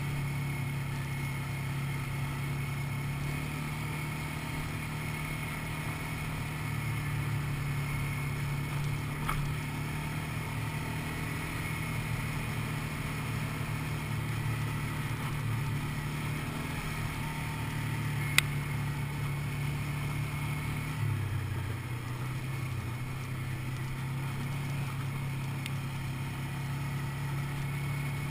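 Quad bike (ATV) engine running steadily while riding a dirt track. About three-quarters of the way in, the engine note drops lower. A single sharp click comes a little past the middle.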